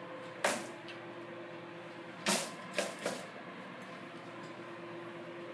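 Handling noise as the camera is moved about: a sharp click about half a second in, a louder short knock a little after two seconds, then two smaller knocks, over a faint steady hum.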